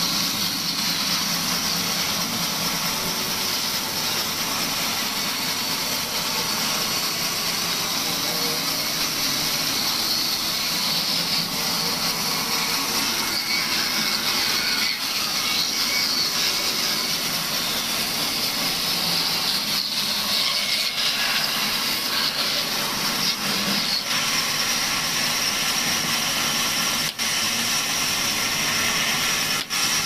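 Band saw running steadily as it rips lengthwise through a long, weathered wooden beam, with a constant high hiss of the blade cutting.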